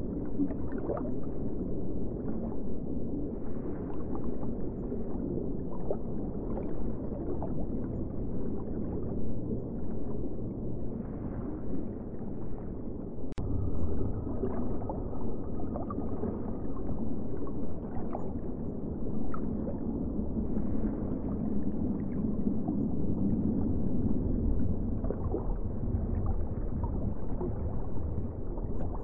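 Steady low rushing and gurgling of moving aquarium water, with scattered small pops and a single sharp click about halfway through.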